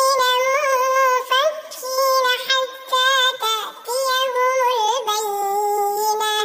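A child's high voice reciting the Quran in melodic murottal style: long held, gently wavering notes in short phrases with brief breaks between them.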